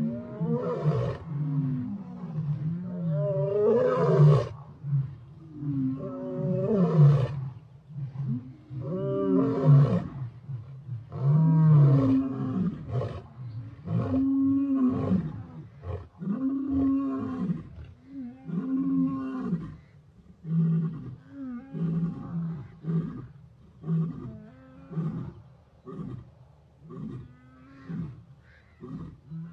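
Lion roaring: a bout of long, loud roars followed by a run of shorter grunting roars at an even pace, each fainter than the last.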